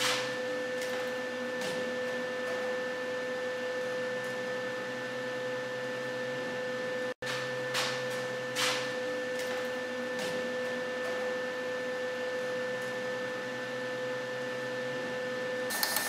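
A steady electrical hum made of a clear mid-pitched tone and a fainter higher one, with a few faint ticks. It cuts out for an instant about seven seconds in. No welding is heard.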